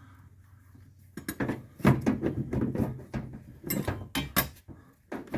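Hard parts and tools clinking and knocking as they are handled under the hood, in a quick irregular run of clicks that starts about a second in and thins out near the end.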